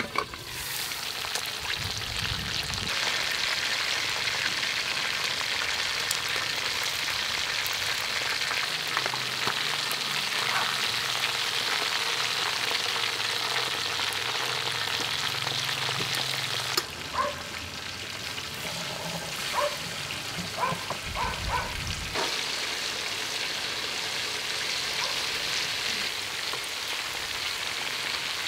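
Chicken pieces deep-frying in a wok of hot oil: a steady sizzle. Between about two thirds and three quarters of the way in come a few light metallic clinks, steel tongs against the wok.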